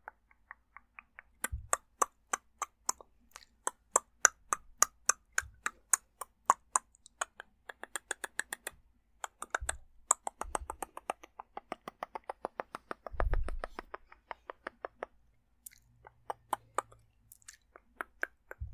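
Close-up ASMR mouth sounds: a rapid string of dry mouth and tongue clicks, several a second and quicker in bursts. A few dull low thumps come in among them, one longer and louder about two-thirds of the way through.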